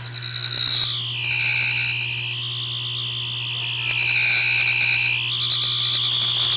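Electronic whine from a handheld ghost-hunting meter with a needle gauge: a high tone that glides down in pitch about a second in, holds, then climbs back up about five seconds in, over a steady low hum.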